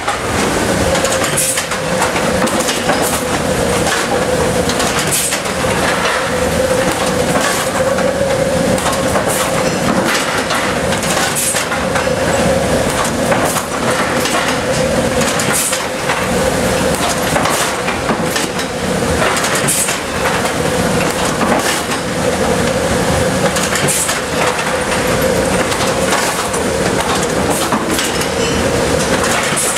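Forging presses and dies working red-hot steel into barn cleaner chain links: a steady machine hum with repeated metal clanks and impacts at uneven intervals.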